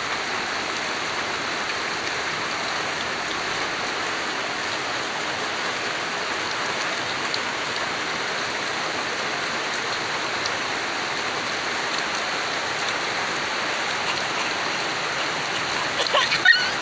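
Steady rain falling, a constant even hiss. Near the end there is a short burst of louder crackles and knocks.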